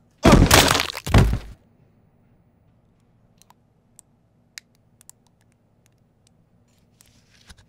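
A sudden, loud crash in two bursts lasting about a second, then a few faint, scattered drips as blood runs off the edge of a counter.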